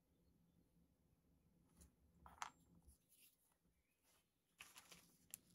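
Near silence, with a few faint clicks and scrapes from small hand tools and parts being handled at a workbench, about two seconds in and again near the end.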